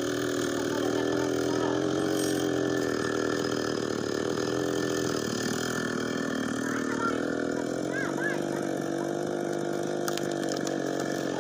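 Chainsaw's two-stroke engine running at a steady speed, its pitch sagging slightly about six seconds in and holding there.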